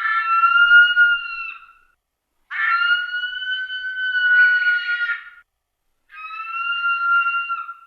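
Recreated Haast's eagle call, made from a Wahlberg's eagle call slowed down so that it is longer and slower: three long, steady, high calls of about two to three seconds each, with short gaps between them, each dipping slightly at its end.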